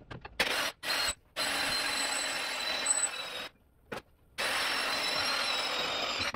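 Power drill boring a 13/64-inch hole for a rivet: a few short trigger blips, then two runs of about two seconds each with a steady high motor whine, separated by a short pause near the middle.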